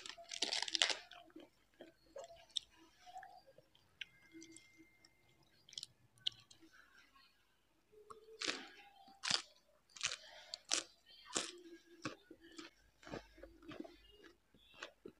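Close-up mouth sounds of a person eating: crunchy biting and chewing, with a dense crackling burst in the first second and a run of sharp separate crunches from about eight seconds in.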